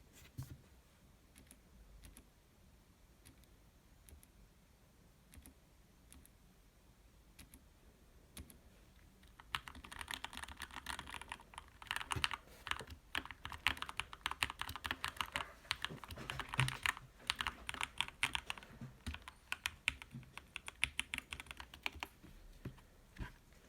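Keychron K2 mechanical keyboard being typed on: scattered single keystrokes for the first several seconds, then fast continuous typing for about twelve seconds, then a few isolated keys near the end.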